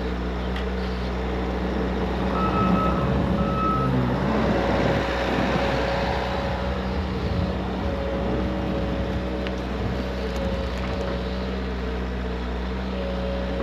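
Engine of a farm machine running steadily, rising a little for a few seconds near the middle, with two short high beeps about three seconds in.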